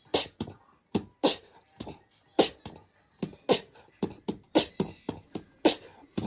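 Background beat of sharp, dry percussive hits in a steady rhythm, two or three a second, with no melody.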